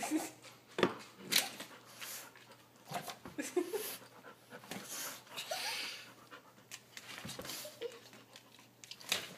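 Old Rottweiler sniffing and huffing in short irregular breaths with its nose pressed to the rug, with a few brief whines mixed in: the dog frustrated at a laser pointer dot it cannot catch.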